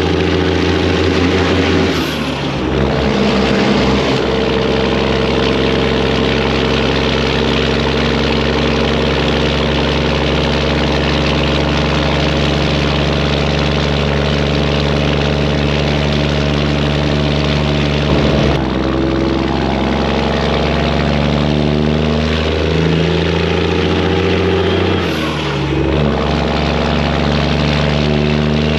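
Detroit diesel semi-truck engine working hard up a hill, its exhaust pipes loud and steady. Twice, about two seconds in and near the end, the level dips briefly and the engine note settles at a new pitch.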